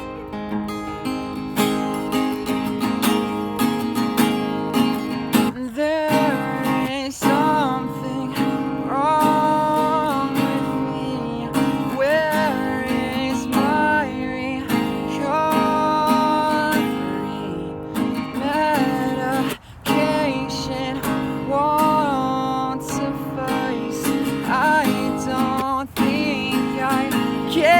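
Acoustic guitar strummed steadily as a song's instrumental intro, with a gliding wordless melody line joining over the chords about six seconds in.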